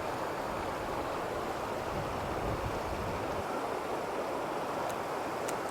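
Steady rush of water from a small rocky river flowing over stones.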